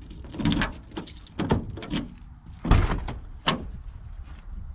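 Key turning in the door lock of a 1994 Ford E350 van and the door being unlatched and opened: a run of clicks and knocks, the loudest a heavy clunk a little before three seconds in.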